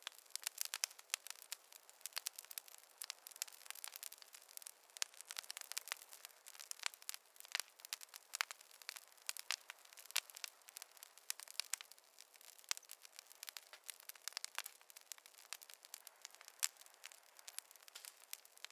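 Wood fire in a fireplace crackling: dense, irregular sharp pops and snaps over a faint hiss.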